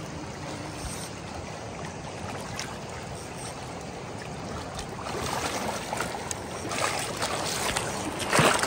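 Shallow river current running over a cobble bottom. Splashing builds from about five seconds in and is loudest near the end, as a landing net is dipped into the water.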